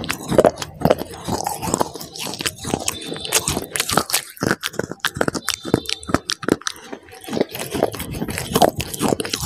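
Close-miked biting and chewing of chocolate bars: crisp crunching made of many quick, sharp clicks, with wet mouth sounds in between.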